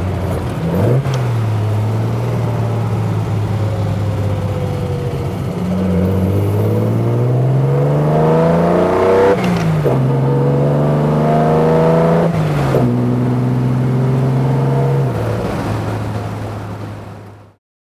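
Triumph TR6's 2.5-litre straight-six, on triple Dellorto carburettors with a fast road cam, pulling hard from the open cockpit. The engine note climbs under acceleration and drops sharply at an upshift about halfway through, then climbs and drops at a second shift. After that it holds, eases off and fades out at the end.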